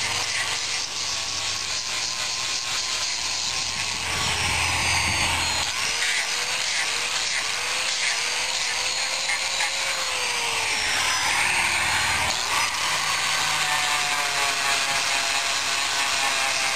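Handheld electric angle grinder running and cutting into a log, trimming the scarf to fit. Its motor whine wavers up and down in pitch as the disc bites into the wood and eases off.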